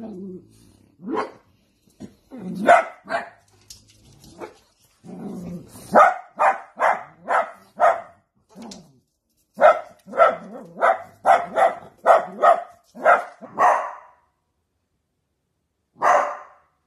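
French bulldogs barking at a cat outside a glass door: many short barks in quick runs, stopping about fourteen seconds in, with one more bark near the end.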